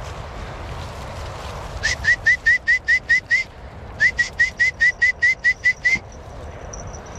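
A bird calling: two quick runs of short, sharp, upward-hooked notes, about five a second, the first starting about two seconds in and the second about four seconds in.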